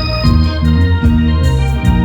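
Live instrumental music from an electronic keyboard in an organ voice, played loud through a procession truck's speaker system. It plays sustained chords over a bass line that steps to a new note about every half second.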